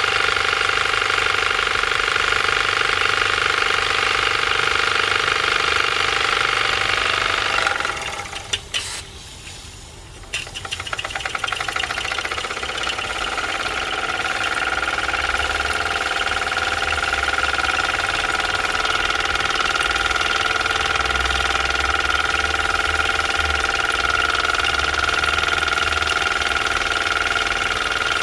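Mamod SE2a toy steam engine running fast, its oscillating cylinder and flywheel making a steady rapid whirring chuff. About eight seconds in the sound falls away almost completely for around two seconds. It then picks up again, the beats briefly separate before merging back into the full steady run over the next few seconds.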